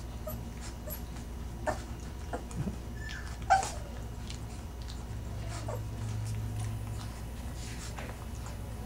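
Great Dane puppies squeaking and whimpering now and then as they nurse, with short falling cries, the loudest about three and a half seconds in, over a low steady hum.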